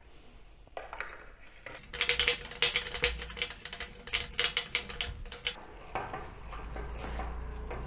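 Wire whisk beating creamed butter, sugar and oil in a glass bowl: quiet scraping, then a few seconds of rapid clicking of metal on glass from about two seconds in, easing off to quieter stirring near the end.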